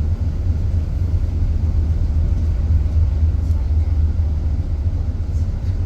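Steady low rumble inside a driverless bus on the move: road and drivetrain noise in the cabin.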